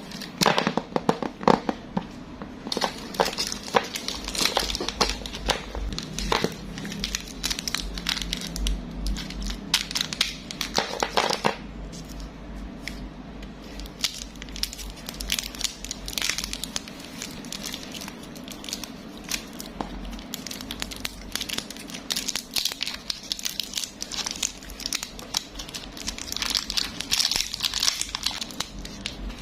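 Plastic packaging crinkling and crackling as it is handled and unwrapped by hand: a dense, irregular run of small clicks and rustles.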